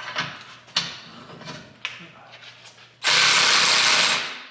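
Hand tools clicking and clanking on the exhaust hardware while it is being unbolted. About three seconds in, a loud, steady rushing hiss starts, lasts just over a second, then fades out.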